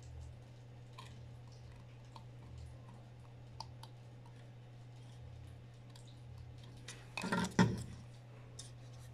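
Faint scattered clicks and taps of multimeter test probes touching the LED chips on an LED bulb's circuit board during a continuity test for burnt LEDs, over a low steady hum. A louder burst of handling noise comes about seven seconds in.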